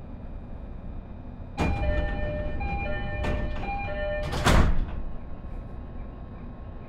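JR E531 series train's door-closing chime, two notes alternating for about three seconds, then the sliding doors shutting with a loud clatter near its end. A steady low hum from the stationary train runs underneath.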